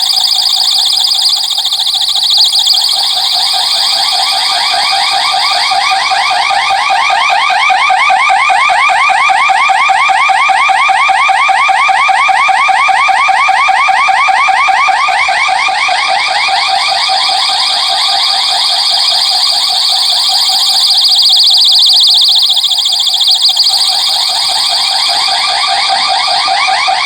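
Electronic security siren sounding a warble tone, its pitch sweeping up and down rapidly over and over at a loud, steady level.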